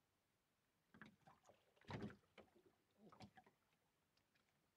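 Faint, scattered knocks and taps in a small fishing boat, the loudest about two seconds in, with near silence between them.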